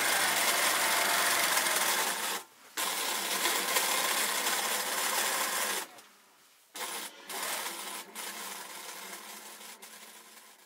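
Sewing machine running in stretches, stopping briefly about two and a half seconds in and again around six seconds in, then fading toward the end.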